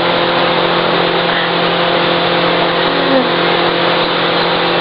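Steady mechanical hum with a constant rushing noise behind it, like a motor running without change.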